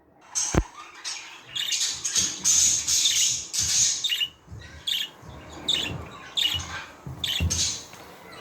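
Budgerigars chattering and squawking in quick, scratchy bursts of short calls. A single sharp knock sounds about half a second in.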